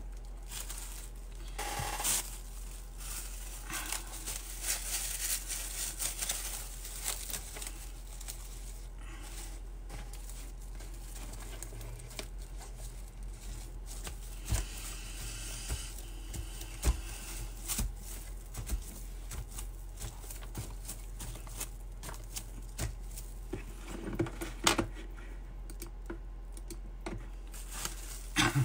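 Crinkled plastic wrap crackling and rustling as hands press it down flat over a wet watercolour page, in irregular soft crackles.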